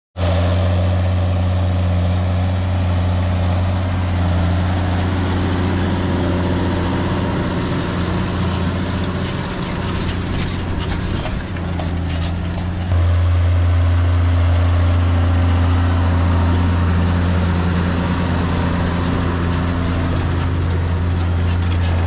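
John Deere 6175M tractor's six-cylinder diesel engine running steadily under load while pulling a reversible plough through the soil. The steady drone gets louder about halfway through.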